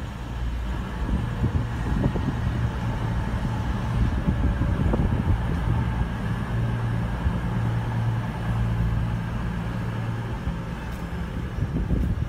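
CrossCountry Class 220 Voyager diesel multiple unit running at the platform, its underfloor diesel engines giving a steady low drone.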